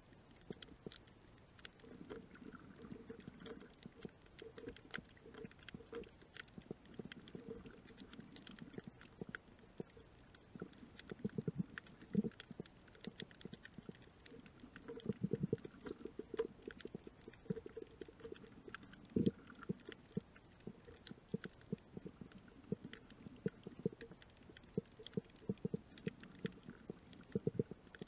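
Muffled underwater sound of a shallow reef tide pool: low, uneven rumbling of moving water with many small irregular clicks and crackles throughout, and a few louder knocks.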